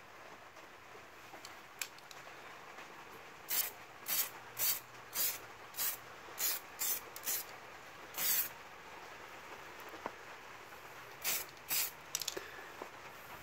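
Aerosol can of weld-through copper primer spraying in short hissing bursts: about nine quick squirts, the last a little longer, then two more near the end, as the primer is sprayed onto a steel subframe ahead of welding.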